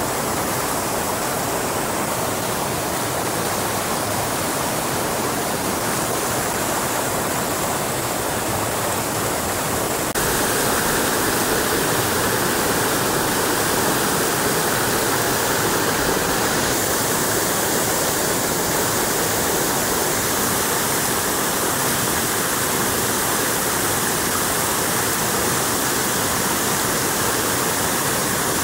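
Steady hiss of rushing water, unbroken throughout, growing slightly louder about ten seconds in.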